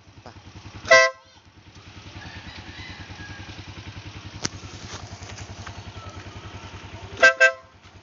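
A newly fitted 12V dual-contact compact electric horn on a scooter sounding: one short loud blast about a second in, then two quick toots near the end. A steady low pulsing sits underneath.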